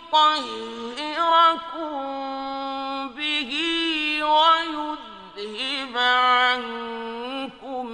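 A male reciter chanting Quranic verses in a slow, ornamented melodic style, holding long notes and sliding between pitches, with short pauses between phrases.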